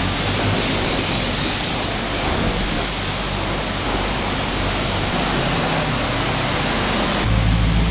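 High-pressure water spray from a self-serve car-wash wand hitting a Jeep, a loud steady hiss. Near the end it cuts off and a steady low hum takes over.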